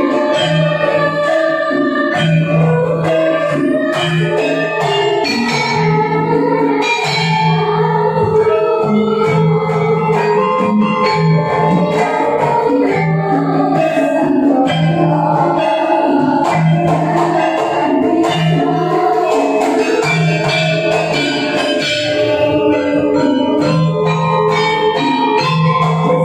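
Javanese gamelan ensemble playing in Sragenan kendang gedruk style: bronze metallophones and gongs ringing in a steady repeating pattern under kendang drumming, with children's voices singing the vocal line.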